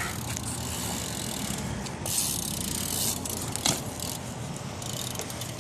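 BMX bike coasting, its rear hub ratcheting, with tyre hiss that comes and goes and a sharp click about two thirds of the way in.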